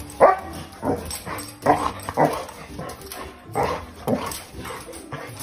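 A dog barking repeatedly, about six short barks at uneven gaps.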